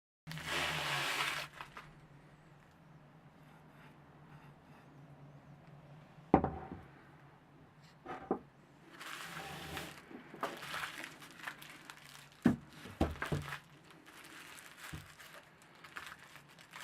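Handling noise: crinkling, rustling bursts with several sharp clicks and knocks, over a faint steady low hum.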